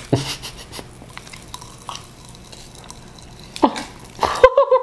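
Watermelon popping candy crackling in the mouth: many small, irregular pops and snaps. Near the end a person's voice makes a wavering hum-like sound.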